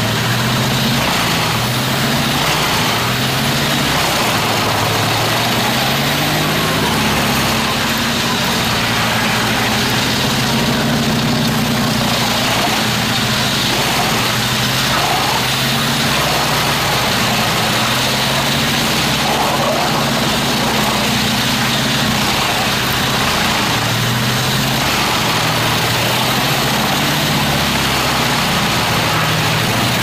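Truck-mounted wood chipper running under load as a crane grapple feeds it logs and branches. Its engine note wavers up and down as the wood goes in, over a steady dense hiss, with a few short rising whines in the middle.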